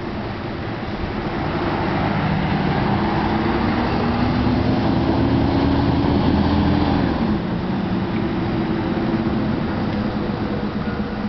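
Mercedes-Benz O405GN articulated bus driving past and pulling away, its engine note climbing as it accelerates, then dropping at a gear change about seven seconds in.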